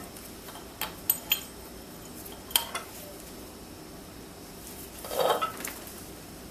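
Small steel engine parts, a washer and flywheel hardware, clinking against each other as they are handled and fitted: a few light metallic clinks in the first three seconds. About five seconds in comes a short puff of breath.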